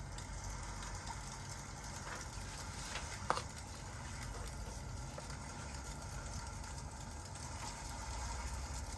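Crackling fireplace and rain ambience: a steady low rumble under a light hiss, with one sharp pop a little over three seconds in.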